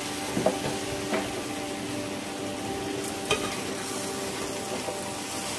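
Jackfruit and potato curry sizzling steadily in a pot as a spatula stirs it, with a few knocks and scrapes of the spatula against the pot.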